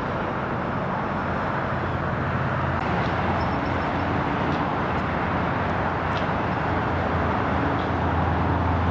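Steady outdoor roar of airport and road traffic, with a low engine hum underneath that grows slightly louder toward the end.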